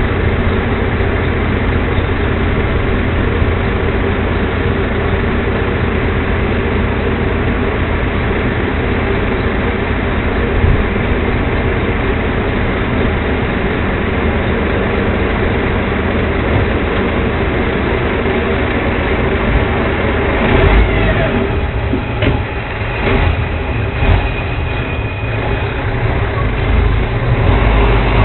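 Diesel garbage truck with a Leach rear-loader body running steadily at raised revs while it works a dumpster at its rear hopper. About 20 seconds in the sound turns uneven, with a few clunks and a short rising whine, as the truck starts to pull away.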